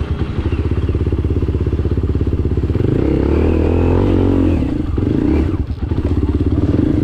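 Enduro dirt bike engine running under throttle, its revs rising and falling between about three and five seconds in, with a brief drop near six seconds before it picks up again.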